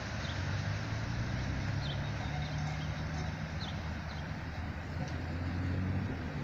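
Low, steady rumble of a freight train's diesel locomotives in the distance, swelling slightly near the end, with a few faint bird chirps.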